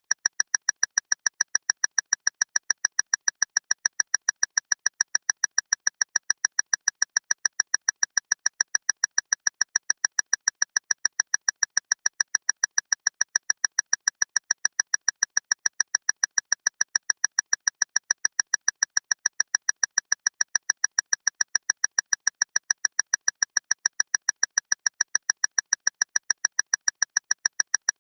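A loud clock ticking rapidly and evenly, each tick a sharp, bright click at the same loudness, with no change.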